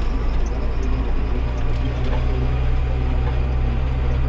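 Farm machine's diesel engine running steadily, a constant low drone heard from inside the cab.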